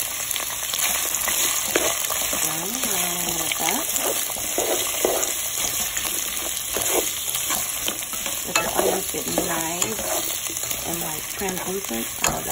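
Chopped bell peppers, onions and carrots frying in hot olive oil with a nice sizzle, stirred with a spatula that scrapes and squeaks across the pan.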